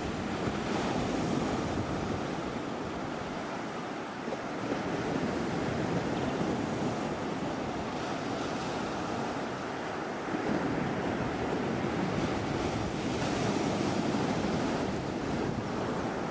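Small surf breaking and washing up a sandy beach in a steady rush, with wind on the microphone. The surge swells about a second in and again from about ten seconds in.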